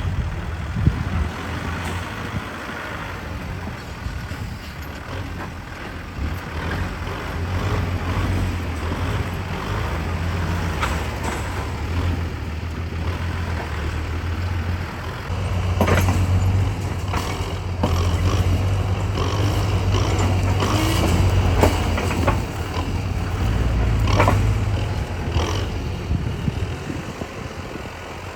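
Heavy diesel construction machinery running steadily, with a series of clanks and knocks through the second half.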